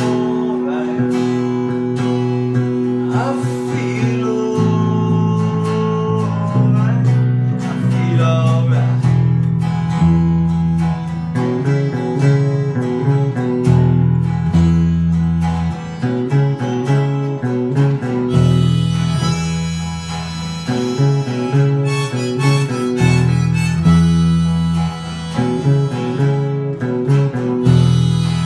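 An electric bass guitar and an acoustic guitar playing together, with a lead melody that bends in pitch over them.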